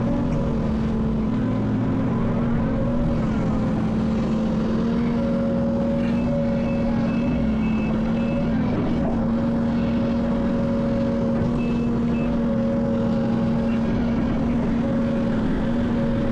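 Heavy diesel equipment engine running steadily under load. A high-pitched backup alarm beeps in a short series about six seconds in, and briefly again near twelve seconds.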